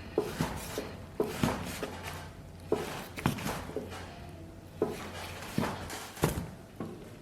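Irregular knocks and clunks of kitchen handling, about eight in seven seconds, over a faint low steady hum.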